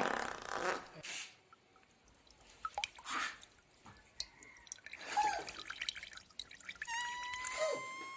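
Scattered drips and small splashes of water, typical of a toilet bowl in use, with a thin whistling tone that rises slowly near the end.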